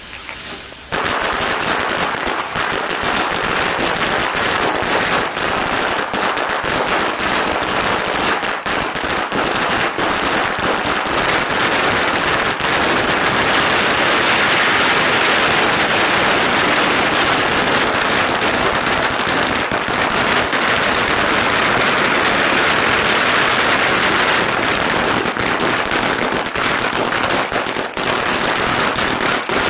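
A 39,000-cracker string of red firecrackers going off in one continuous, rapid crackle of pops. It starts about a second in and keeps going without a break.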